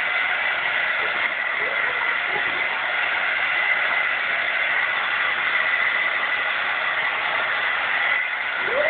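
Hair dryer running steadily: a constant rush of air with a steady high motor whine.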